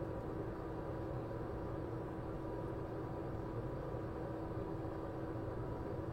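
Steady whir of microsoldering bench equipment running, a constant airy hiss with a low hum and a faint steady tone, unchanging throughout.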